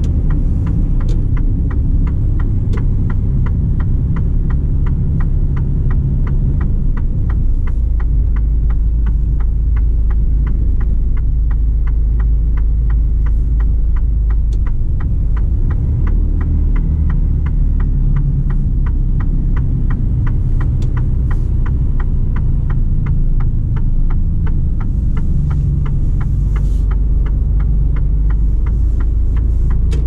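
Inside the cab of a 2019 Mercedes-Benz Actros lorry on the move: a steady low engine and road drone, with a regular light ticking, two or three ticks a second.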